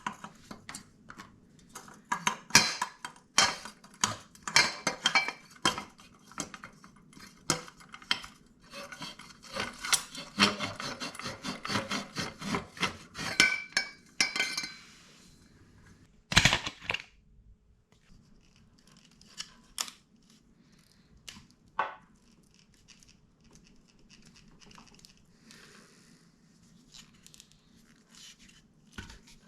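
Hand tools working on a dirt bike: metal tools and parts clicking, clinking and scraping in quick succession, thinning out to occasional clicks about halfway through.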